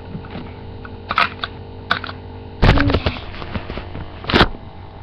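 Several knocks and clicks of things being handled close to the microphone, the loudest and heaviest a bump a little over halfway through, over a steady low electrical hum.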